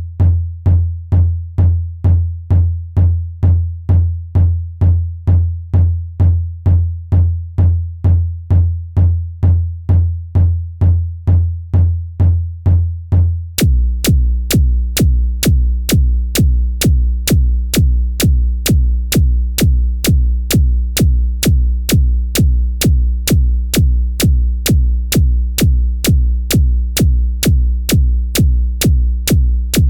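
Electronic kick drum samples repeating about twice a second. The first kick is a rounded low thud; about 14 seconds in it switches to a deeper kick with a sharp click on each hit.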